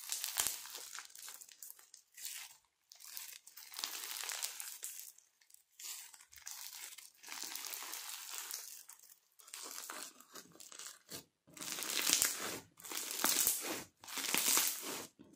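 Old clear slime, gone grainy and crystallised, crackling and crinkling as hands squeeze, stretch and knead it. The crackles come in repeated bursts and get louder over the last few seconds, at about one squeeze a second.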